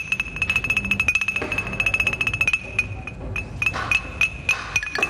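Music: one high metallic note struck rapidly again and again on a tuned metal chime or bar, with a second, lower note joining near the end.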